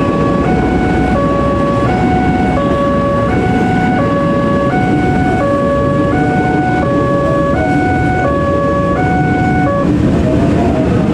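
Railroad level-crossing alarm sounding its new electronic tone, two pitches alternating in a steady repeating pattern, over the rumble of a passing KRL Commuterline electric train. The alarm cuts off about ten seconds in while the train rumble continues.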